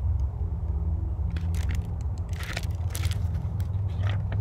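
Pages of a hardcover picture book being handled and turned: a few short papery rustles and crinkles over a steady low rumble.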